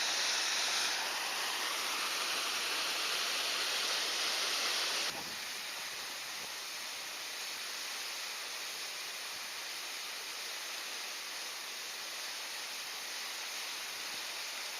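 Steady rushing of a creek's flowing water, which drops abruptly to a lower level about five seconds in.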